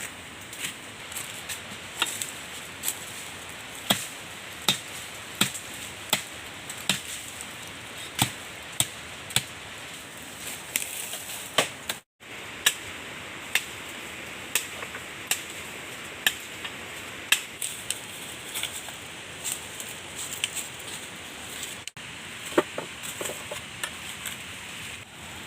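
Repeated chopping with a blade on wood: sharp, evenly spaced strikes, roughly one every three-quarters of a second, over a steady background hiss. The sound cuts out for an instant twice.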